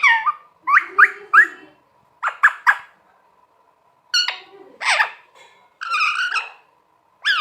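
Pet green parrot calling: a string of short, sharp calls that glide up and down in pitch, coming in quick clusters of two or three with pauses of about a second between them.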